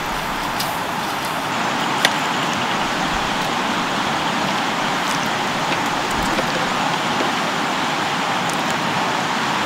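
Steady rushing of a river flowing close by, with a few sharp clicks over it, the most distinct about two seconds in.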